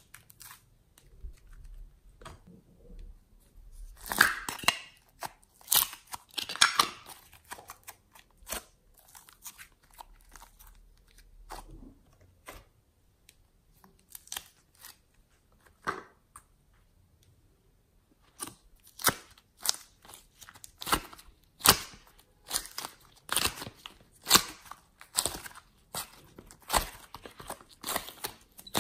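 Hands squeezing and kneading glossy slime and soft clay, making sharp sticky clicks and pops in irregular clusters. The clicks are sparse at first and come thick and fast in the second half.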